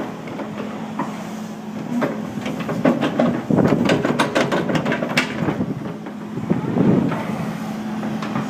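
Compact excavator's diesel engine running with a steady hum, with a run of metallic clanks and rattles from about three to five seconds in as the bucket works the dirt and rocks, and another heavy scrape near seven seconds.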